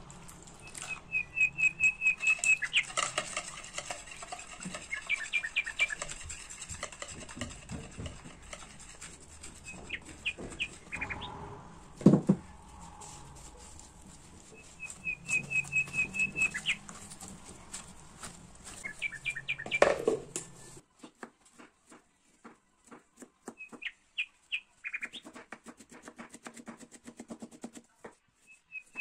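A small bird chirping in short runs of rapid high trills, over the sounds of work in a bowl, with one sharp knock about twelve seconds in. After a cut, a knife slicing a carrot against a plastic cutting board in an even series of light chops, with a few more chirps.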